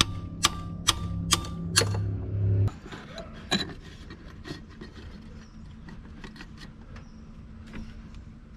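Music with a steady beat of about two strikes a second, which stops about three seconds in. It is followed by faint, irregular metallic clicks and taps as the truck's oil drain plug is put back in by hand.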